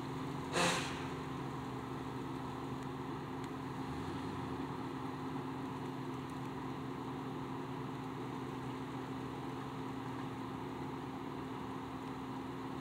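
Jeep engine idling steadily, with one short, sharp burst of noise about half a second in.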